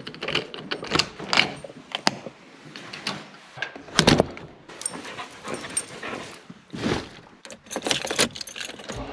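Keys jangling amid clicks and knocks of handling and doors, with a heavy thud just before seven seconds like a car door shutting.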